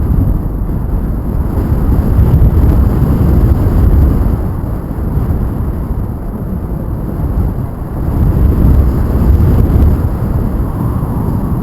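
Wind buffeting the microphone during a paraglider flight: a loud low rumble of airflow that swells and eases in gusts.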